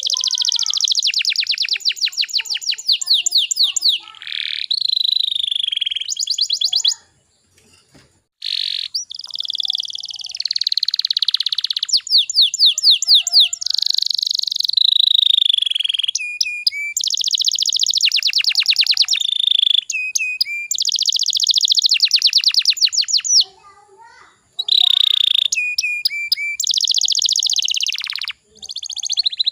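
Domestic canary singing long phrases of fast rattling trills and clear whistled notes, breaking off briefly twice. It is a canary lure song, played to prompt young canaries to start singing.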